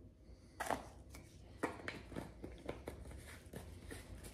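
Faint irregular taps and clicks of a spice jar and metal spoon as ground black pepper is shaken out onto the spoon, with two sharper clicks about half a second and a second and a half in.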